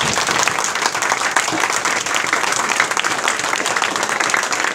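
Audience applauding, with steady, dense clapping from many hands.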